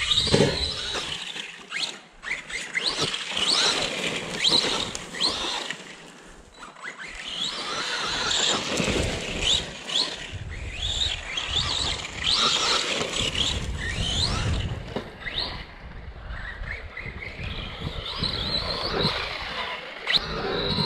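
Arrma Big Rock RC monster truck running hard, its electric motor and gears whining in quick rising and falling sweeps as the throttle is pumped on and off. A few sharp knocks come through.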